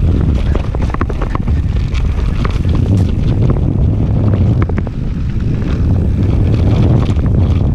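Wind rushing over the microphone while a mountain bike rides a trail at speed, under a constant low rumble. Frequent short clicks and rattles come from the bike over rough ground.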